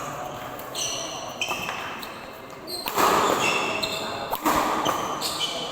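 Badminton players' shoes squeaking on a hall court floor during a rally, many short high squeaks with an occasional sharp hit, echoing in a large hall. Voices of onlookers swell about three seconds in.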